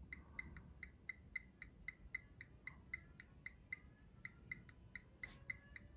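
Faint, rapid, even ticking, about six ticks a second, from the amplifier dyno bench while it runs a 1 kHz bridged power test on the amplifier.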